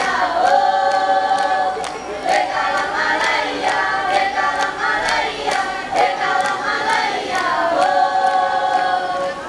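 A group of girl scouts singing together in chorus, holding long notes that step up and down in pitch, with sharp regular beats keeping time.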